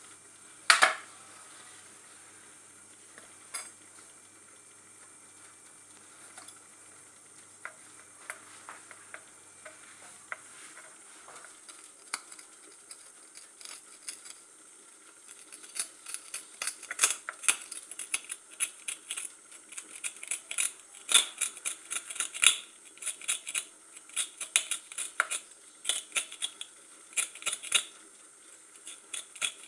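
Metal fork clicking and scraping against a carpet sweeper as debris is picked out of it. The clicks are sparse at first, then come thick and fast through the second half.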